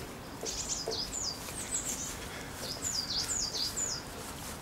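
A songbird singing two phrases of quick, high, gliding notes, one starting about half a second in and the next about two seconds later, over faint outdoor background noise.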